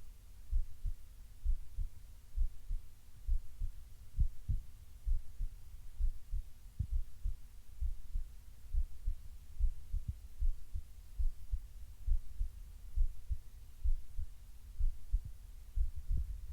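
Human heartbeat beating steadily, regular low thumps about once a second, over a faint steady hum.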